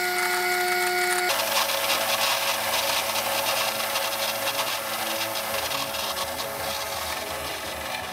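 A drill press motor running with a steady whine for just over a second, then a Delta bench band saw running and cutting handle stock for the knife: a dense rasping hiss over the saw's steady motor hum, easing off slightly toward the end.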